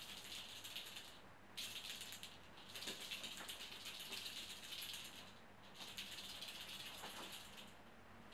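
A handheld cat teaser toy rattling as it is shaken, a dry, rapid rattle in stretches of a second to a few seconds with short breaks between.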